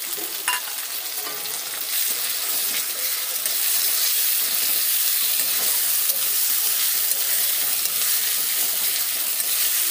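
Sliced onions and ginger-garlic paste sizzling in hot oil in a kadhai while being stirred with a spatula. It is a steady frying hiss that grows a little louder a few seconds in.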